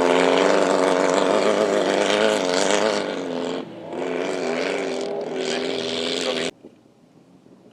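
Off-road race car engine running hard, its pitch wavering up and down, with a brief dip about halfway through. It cuts off abruptly about a second before the end, leaving only faint wind.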